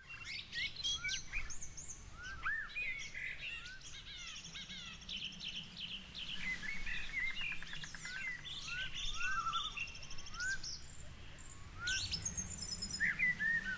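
Small songbirds chirping and singing, many short rising chirps and trilled phrases overlapping, over a faint low outdoor background noise.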